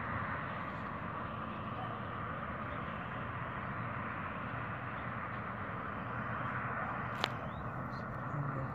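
Steady road noise from cars driving on the street, with a single sharp click about seven seconds in.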